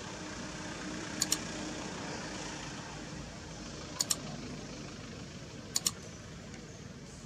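Computer mouse click sound effects, three double-clicks a couple of seconds apart, from a like-subscribe-bell button animation. They play over steady background noise.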